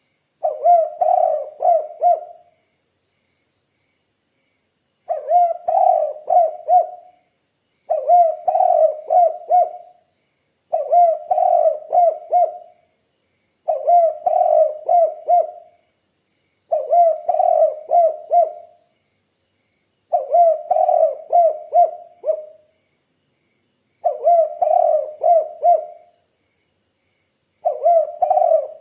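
Spotted dove (tekukur) cooing: a phrase of four or five low coos, repeated nine times, one phrase every three seconds or so, with a longer pause after the first.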